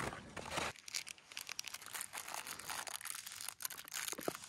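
Plastic fruit-snack wrapper crinkling as it is handled and opened, in many small irregular crackles.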